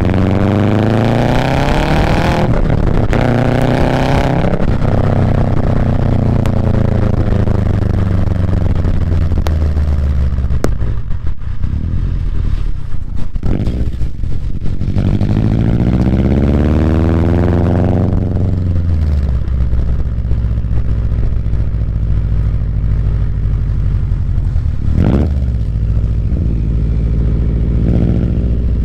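Exhaust of a Subaru WRX STI's turbocharged flat-four through an ETS quiet non-resonated muffler, the engine speed rising and falling in long sweeps. A rougher, choppier stretch comes in the middle, then a quick blip, before it settles to a steady idle near the end.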